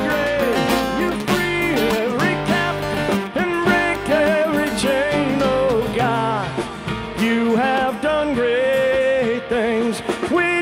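Live worship band playing a song: electric and acoustic guitars, bass guitar and a drum kit, with a man singing the lead vocal.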